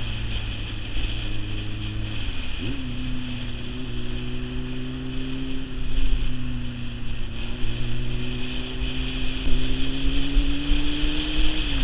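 Sport motorcycle engine running under way, its pitch climbing slowly as it accelerates, with a break and drop in pitch at a gear change about two and a half seconds in and again near the end. Wind rushing over the microphone throughout.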